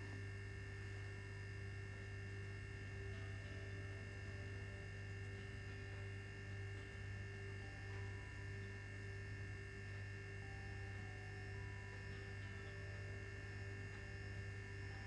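A steady low electrical hum with a few faint steady high tones above it; nothing else stands out.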